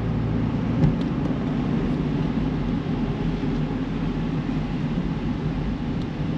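A car driving along a road: steady engine and road rumble, with a single short click a little under a second in.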